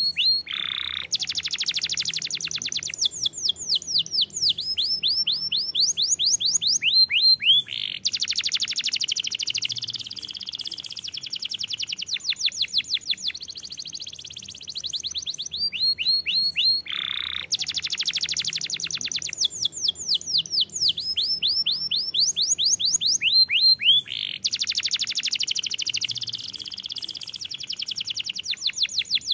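Domestic canary singing a long, almost unbroken song of rapid trills and buzzy rolls, one tour of quick repeated notes running straight into the next. The same run of phrases comes round again about 16 seconds later.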